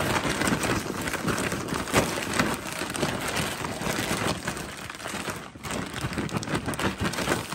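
A large plastic zip bag of chocolate-coated Rice Chex cereal and cashews being shaken and tossed by hand with powdered sugar: the plastic crinkles and the pieces rustle and tumble inside. The sound is continuous, with a brief lull about two-thirds of the way through.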